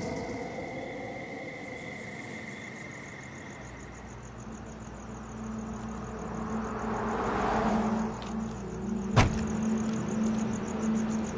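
A car door slams shut once, sharply, about nine seconds in. Under it a car engine hums steadily and crickets chirp.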